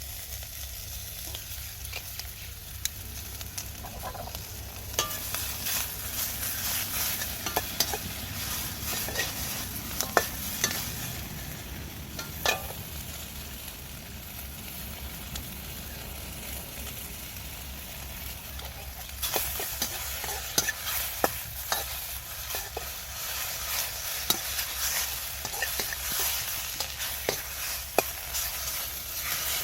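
Food sizzling in a Chinese wok as it is stir-fried, with scattered sharp clicks of the utensil against the wok. The sizzle grows louder about two-thirds of the way in.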